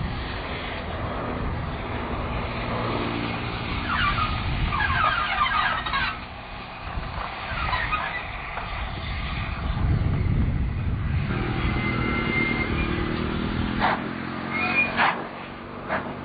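GWR Castle class 4-6-0 steam locomotive hauling a train past, heard as a steady low rumble. Short bursts of high chirping sounds come a few seconds in, and a few sharp clicks come near the end.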